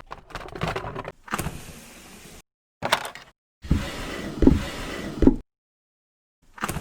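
Short spliced bursts of mechanical whirring and clatter, each starting sharply and cut off abruptly into dead silence, with a gap of silence for about a second near the end.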